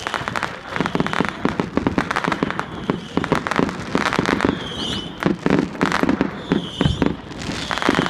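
Fireworks display going off: a rapid, dense string of bangs and crackling bursts.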